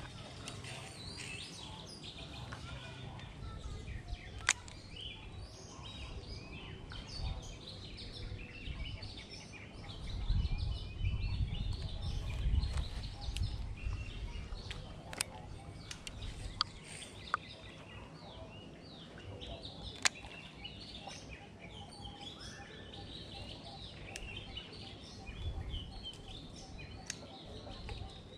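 Birds chirping and calling throughout, with a few sharp clicks and a stretch of low rumble around the middle.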